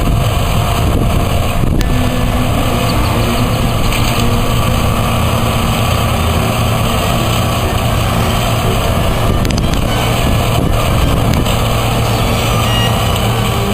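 Combine harvester running steadily: a loud, even engine drone with a constant low hum.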